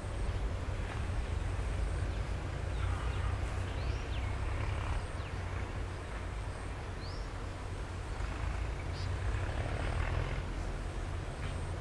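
Birds giving short rising chirps every two to three seconds over a steady low rumble.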